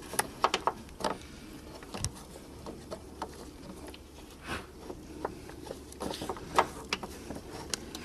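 Irregular small clicks and taps from hands fitting the sidelight bulb holder back into the headlight housing of a 2005 Volvo V70.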